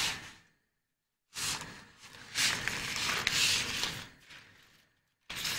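A cardboard pasta box being opened by hand and a plastic-wrapped bundle of noodles pulled out: crinkling and rustling of packaging with a few sharp clicks, in stretches broken by short pauses.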